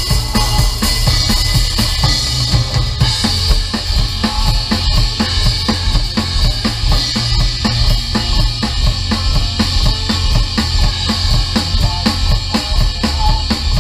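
Live band music with a drum kit playing a quick, steady beat, bass drum and snare prominent.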